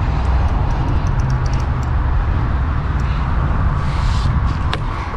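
Wind buffeting the microphone: a steady, heavy rumble, with a few faint high ticks in the first two seconds.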